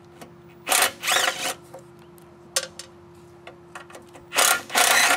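Cordless power driver spinning in two short bursts, about a second in and again near the end, backing out the two quarter-inch bolts that hold a lawnmower engine's dipstick tube. A few small clicks come between the bursts.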